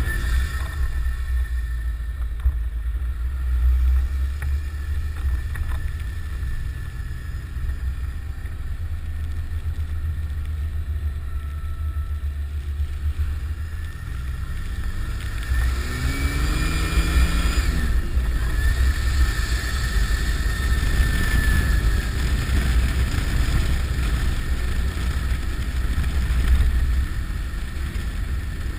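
Nissan Patrol Y60's 2.8-litre turbodiesel engine running under load with a heavy low rumble, and a faint high turbo whistle that rises and falls with the revs, most plainly a little over halfway through.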